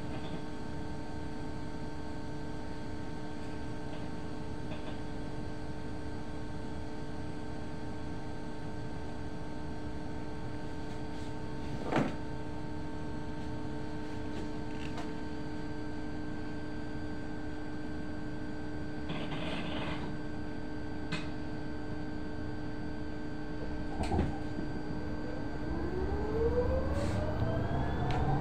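Cabin of a battery-electric city bus standing in traffic: a steady electrical hum made of several fixed tones, with a sharp click about twelve seconds in, a short hiss around twenty seconds and another click near twenty-four. Near the end the traction motor's whine rises in pitch and grows louder as the bus pulls away.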